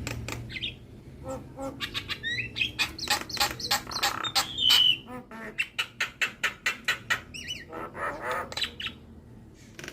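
Javan myna singing a rapid jumble of clicks, chirps and harsh notes, with a short clear whistle about five seconds in.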